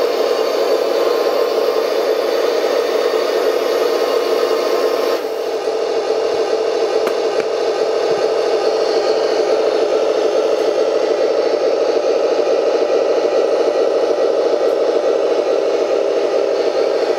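Radio-controlled model Abrams tank running: a loud, steady whirring and rattling of its motors and gears as the turret traverses, with a brief dip about five seconds in.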